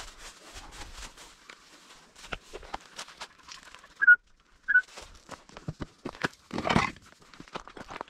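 Footsteps crunching and rustling through dry grass, brush and loose debris. About four seconds in come two short, high whistle-like toots a little over half a second apart, the loudest sounds, and a brief louder brushing noise follows a few seconds later.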